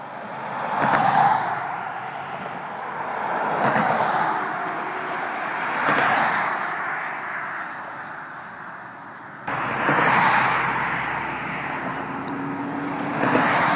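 Highway traffic: about five vehicles pass one after another, each a rising and falling rush of tyre and engine noise. The overall noise steps up abruptly about two-thirds of the way through.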